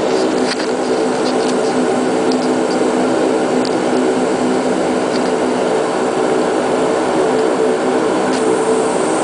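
Bombardier Q400's Pratt & Whitney PW150A turboprop engines and propellers droning steadily, heard from inside the passenger cabin, a constant hum of several low tones over a broad rush.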